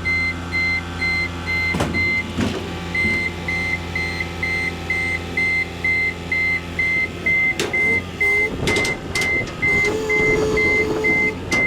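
Diesel engine of compact earthmoving equipment running steadily, with its backup alarm beeping about twice a second. Scattered metal clanks sound throughout, and a steady hydraulic-like whine is heard near the end.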